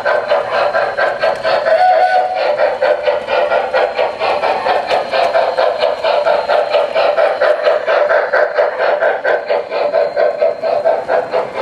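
O-gauge model PRR Mikado steam locomotive running with a train of coal hoppers: a fast, even rhythm of chuffs and wheel clatter on the track, with a brief thin tone about two seconds in.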